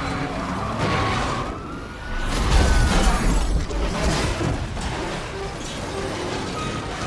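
Car-chase sound mix: a police siren wailing over car engines, with several sudden crashes and impacts, heaviest about two and a half seconds in.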